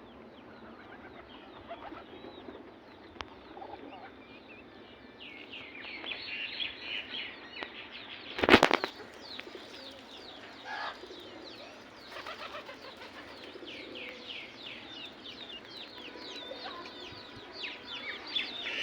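Domestic pigeons cooing, with many short high chirping calls from about five seconds in. A sudden loud clatter comes about eight and a half seconds in.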